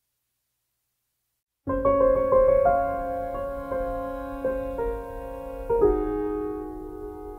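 Silence, then background piano music begins just under two seconds in: single struck notes and chords that ring on and fade before the next.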